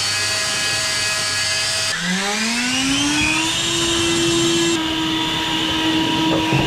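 Canister wet/dry shop vacuum running with a steady motor whine. About two seconds in, the sound breaks off and the motor spins up again, its whine rising in pitch and then holding steady.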